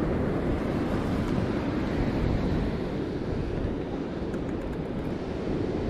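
Steady wind buffeting the microphone over the wash of surf breaking below the pier, with a few faint clicks about four seconds in.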